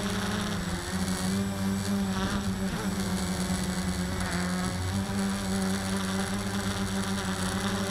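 Walkera QRX350 quadcopter's motors and propellers buzzing steadily while it holds a hover.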